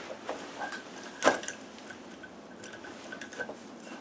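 A few light metal clicks and one sharper clink about a second in: the flywheel puller and the just-removed flywheel being handled.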